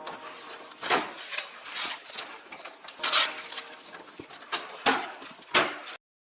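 Light clatter of objects being handled: scattered knocks and clicks with short bursts of rustling. It cuts off suddenly near the end.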